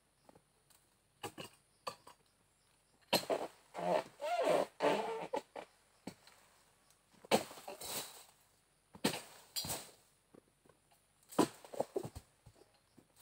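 Dry oil-palm fronds and ground litter crunching and rustling in irregular bursts, several times over, as a harvester moves round the palm with a long-poled dodos (harvesting chisel).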